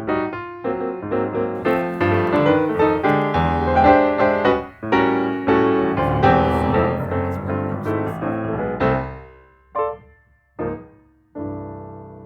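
Background piano music with many quick notes, thinning out about nine seconds in to a few single notes and a final held chord that fades away.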